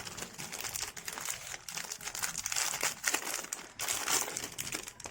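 Plastic packaging crinkling and crackling as it is unwrapped by hand, in a dense, irregular run of crackles.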